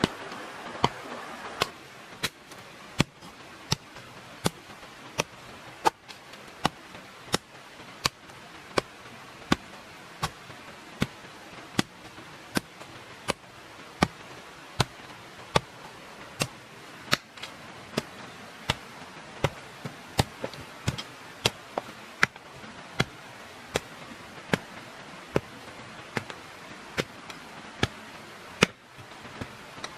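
A steady run of sharp strikes, about three every two seconds, over a faint steady hiss.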